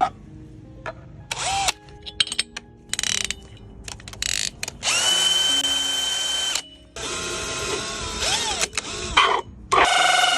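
Speaker-test audio track playing a string of abrupt, drill-like buzzing noise bursts, several with a steady high whine and short pitch swoops, each starting and stopping sharply.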